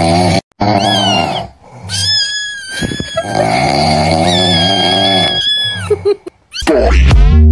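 Comic snoring sound effect: drawn-out, throaty snores with a high whistle riding over them, three times. Upbeat electronic music starts near the end.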